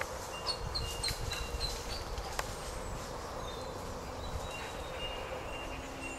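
Small birds chirping: a quick run of short high notes in the first two seconds, then scattered calls, over a faint low rumble. A low steady hum comes in near the end.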